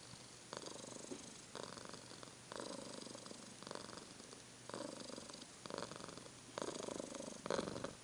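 Domestic cat purring close to the microphone in rhythmic spells about once a second as it breathes in and out, a little louder near the end.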